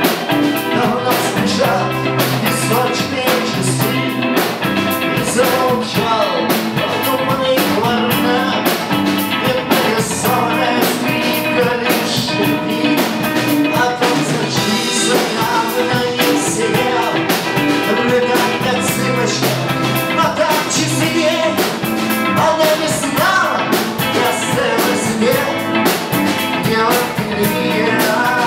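Rock song playing with a steady drum beat: an instrumental passage without sung words, led by guitar.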